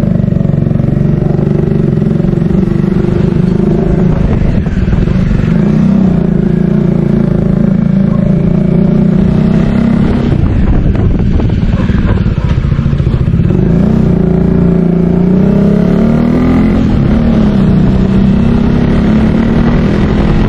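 Motorcycle engine with a noisy exhaust pipe running under way, its pitch rising and falling with the throttle; it eases off briefly about ten seconds in, then pulls again.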